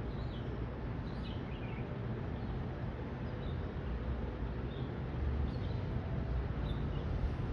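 Small birds chirping outdoors, short falling calls repeated every second or so, over a steady low rumble.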